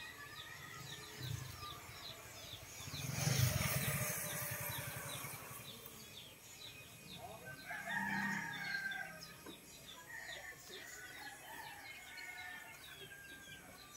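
Faint bird calls: a steady, evenly repeated high chirping, with a longer bending call about eight seconds in. A louder brief knock and rustle comes about three seconds in.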